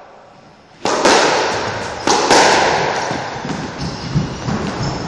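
Squash ball being hit during a rally, racquet and wall strikes sounding as sharp smacks that echo around the court. The first loud hit comes about a second in and two more follow close together about two seconds in, with lighter knocks after.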